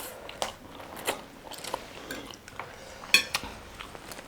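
Mukbang eating sounds: bites and chewing with scattered crisp crunches, the loudest crunch about three seconds in.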